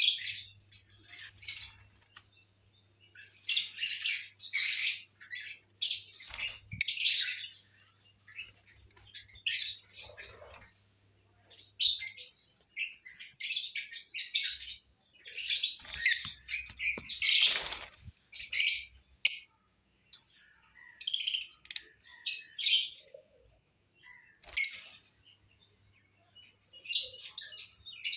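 Caged lovebirds chirping and chattering in short, high-pitched bursts that come every second or so, with brief pauses between.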